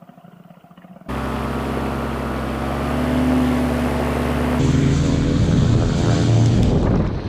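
Paramotor engine and propeller running at steady power, a steady droning hum. It cuts in suddenly about a second in and changes abruptly to a louder, rougher sound about four and a half seconds in.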